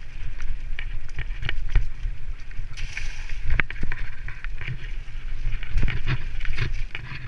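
Mountain bike running fast down a dirt singletrack: frequent irregular rattles, clicks and knocks from the bike over bumps, over a steady low rumble of wind on the microphone. A short hiss about three seconds in.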